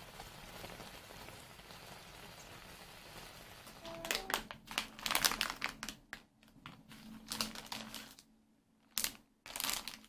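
Plastic food packaging, bags of tteokbokki rice cakes and fish cake, crinkling in short irregular rustles as it is handled and set down, starting about four seconds in. Before that comes a steady hiss of the sauce simmering in the pan.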